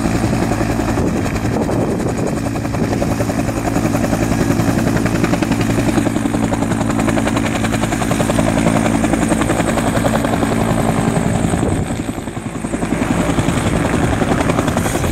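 Bell UH-1J utility helicopter, its two-blade main rotor chopping steadily over the whine of its turboshaft engine, briefly fainter about twelve seconds in.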